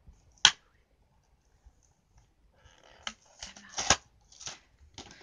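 Stiff plastic toy packaging being pulled open by hand. One sharp snap comes about half a second in, then a run of crackles and cracks in the last two seconds.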